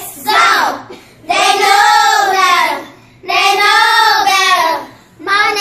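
A child singing: a short phrase, then two long held notes, each about a second and a half.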